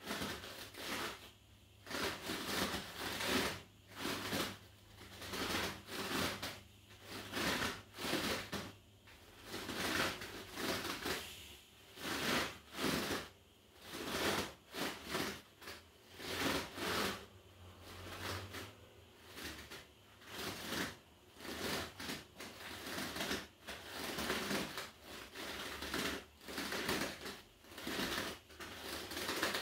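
Inflatable rubber balance disc creaking and rustling under bare feet as the weight shifts on it, in short noisy bursts about once a second, over a faint steady low hum.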